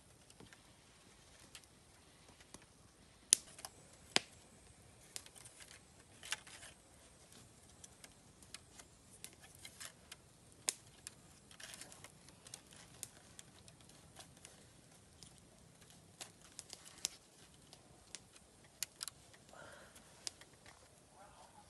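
Scattered sharp clicks and light knocks at irregular times, the two loudest about three and four seconds in: wooden poles knocking and cord being pulled tight as poles are lashed onto a pole platform floor.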